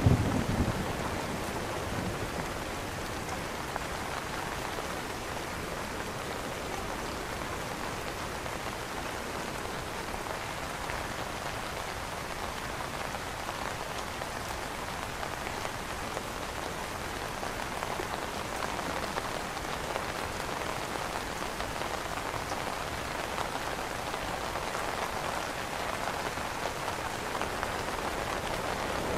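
Steady rain pattering on an umbrella canopy, an even hiss of drops with no let-up. In the first second the tail of a low thunder rumble fades away.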